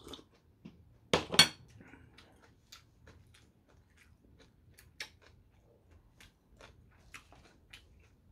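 A ceramic mug set down on a table with two sharp knocks about a second in, then faint scattered clicks of tableware and mouth sounds while eating.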